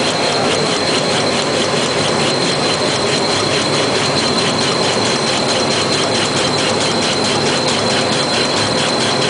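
Toilet-paper and kitchen-towel rewinding machine running at speed: a loud, steady mechanical noise with a high, steady whine and a fast, even ticking from the rollers and paper feed.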